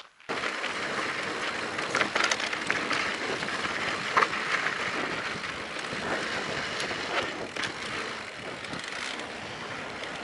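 Mountain bike rolling downhill on a rough dirt trail: steady tyre noise on loose dirt, with frequent clicks and rattles from the bike over bumps. It starts abruptly just after the beginning.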